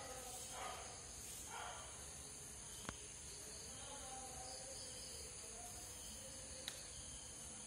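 Insects, likely crickets, chirring steadily as a constant high-pitched background, with two faint sharp clicks about three and seven seconds in.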